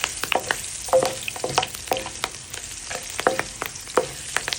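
Crushed garlic, ginger, pimento seeds and bay leaf sizzling in hot frying oil, a steady hiss with frequent sharp ticks and taps as they are stirred in the pan.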